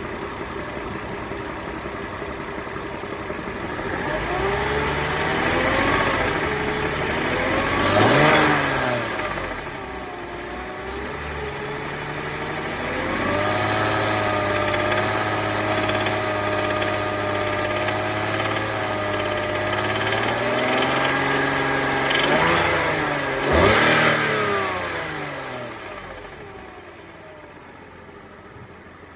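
BMW M54B25 2.5-litre inline-six revved up sharply twice, about 8 s and 24 s in, held at a steady raised speed in between, then settling back to idle near the end. The owner reports a load-dependent rattle between 1900 and 3000 rpm, with a stored fault for a mechanical fault in the intake camshaft adjustment (VANOS).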